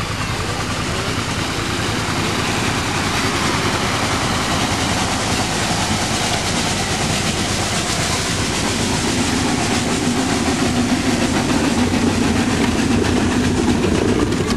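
The Grenville steam carriage running as it approaches and passes close by, a steady mechanical clatter and hiss that grows louder as it nears, with a low hum coming in about two-thirds of the way through.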